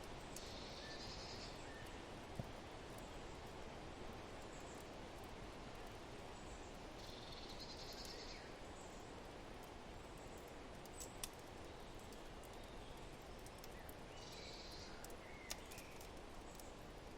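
Soft steady noise of wind and a wood fire, with a few sharp crackling pops, and three short high chirping trills from a bird.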